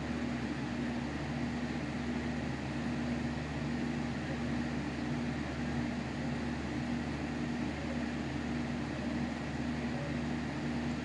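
A steady mechanical hum, with a low tone in it that swells and fades about once a second.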